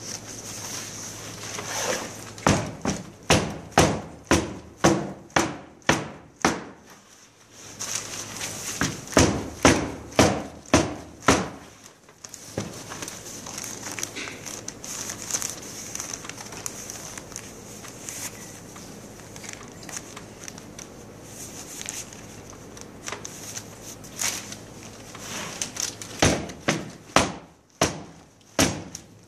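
Dull thumps, about two a second, of hands patting a clay slab through a covering of newspaper on a wooden board. They come in three runs, at the start, around the middle of the first half and near the end, with newspaper rustling and crinkling in between.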